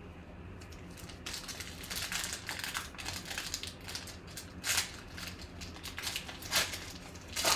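A trading card pack's wrapper being opened, with crinkling and rustling starting about a second in and a few sharper crackles near the end.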